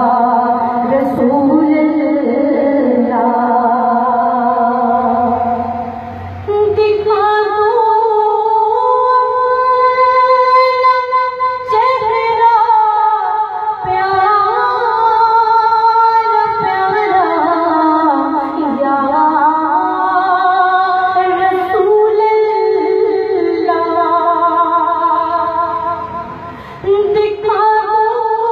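A woman's voice singing a devotional naat in long, held melodic lines, pausing briefly about six seconds in and again near the end.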